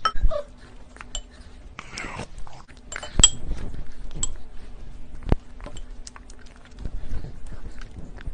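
Plastic spoon clinking, tapping and scraping against glass bowls in irregular strokes, the sharpest knock about three seconds in and another about two seconds later.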